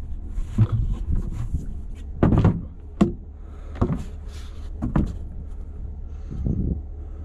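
Knocks and thumps of a cooler being opened and handled, about seven irregular bumps with the loudest in the middle, over a low steady hum.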